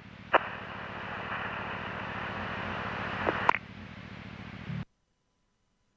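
Police scanner radio channel keyed open with no voice: a click as it keys up, then steady static hiss with a low buzz. About three and a half seconds in a click drops it to a fainter hiss, and the sound cuts off to dead silence near the end.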